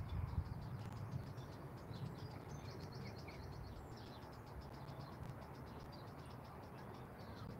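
Outdoor ambience of small birds chirping in many short high calls over a faint, steady low rumble.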